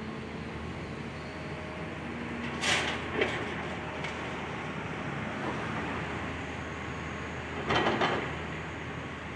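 Excavator engine running steadily during building demolition, with a loud crash of debris about three seconds in, a short knock just after, and another crash about eight seconds in.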